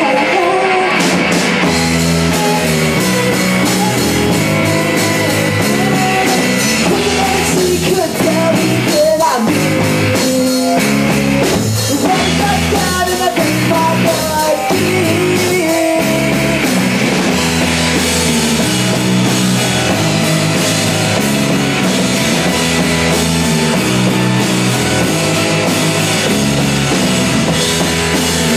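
Indie rock band playing live and loud: electric guitar, bass guitar and drum kit, with a male lead singer.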